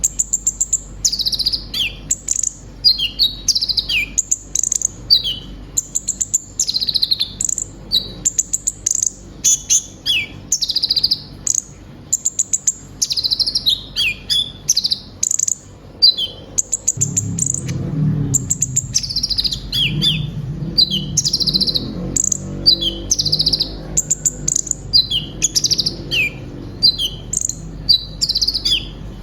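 A kolibri ninja sunbird singing a fast, varied song of high chirps and short falling notes, the mixed-in phrases kept by kicau mania as mimicry material. A low rumble sits under the song from about halfway until near the end.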